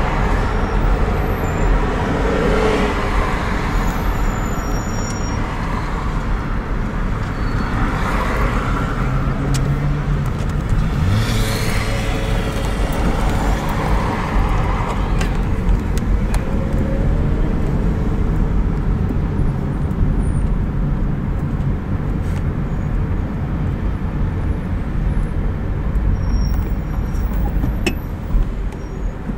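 Car driving through city traffic, heard from inside the cabin: a steady rumble of engine and road noise, with a brief rise in engine pitch about eleven seconds in.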